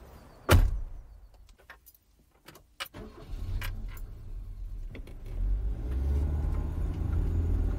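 Car door slams shut about half a second in, followed by a few light clicks. A car engine then starts about three seconds in and runs steadily, growing louder past the five-second mark.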